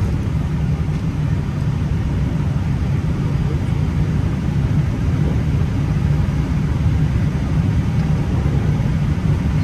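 Airbus A320 taxiing after landing, heard from inside the cockpit: a steady low rumble of the jet and its rolling wheels, with a fainter hiss above it.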